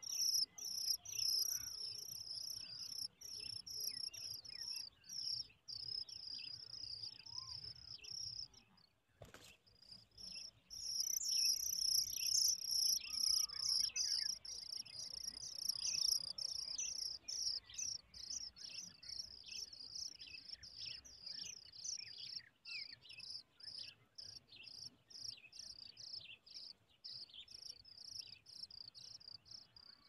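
Oriental magpie-robin nestlings begging at the nest: a rapid, high-pitched series of thin chirps. It breaks off briefly about nine seconds in, is loudest a few seconds later, then thins out toward the end.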